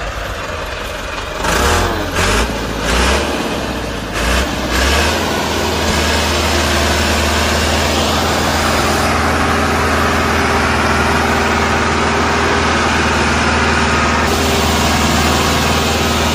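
Tractor engine sound, surging in several short revs in the first few seconds, then running steadily as the tow goes on.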